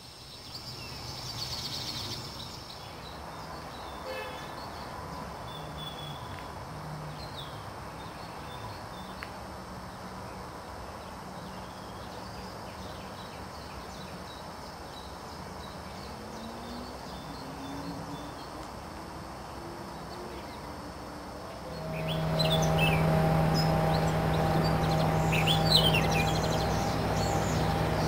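Small birds chirping and calling in riverside trees. About two-thirds of the way through, a steady low engine hum comes in and becomes the loudest sound, with the birds still calling over it.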